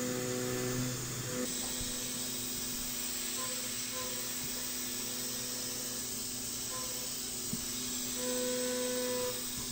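Background music with held notes over the steady hiss and whine of a CNC milling machine cutting a metal part with a small end mill.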